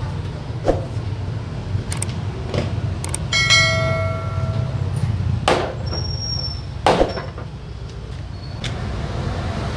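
Rubber mallet knocking on a wooden block held under a drill press chuck, driving the chuck up onto the spindle: about eight separate knocks, the two loudest about five and a half and seven seconds in. One knock near three and a half seconds leaves a brief metallic ring. A steady low hum runs underneath.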